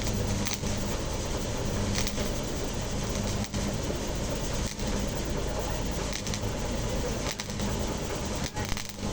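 Electric arc welding: a steady hiss over a low electrical hum, breaking off briefly a few times.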